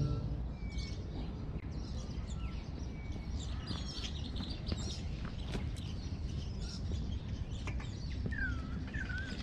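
Birds chirping in short, scattered calls, with a clearer wavering chirp near the end, over a steady low background rumble and a few faint clicks.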